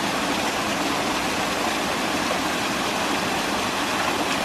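Small waterfall and rocky stream rushing steadily, an even unbroken water noise.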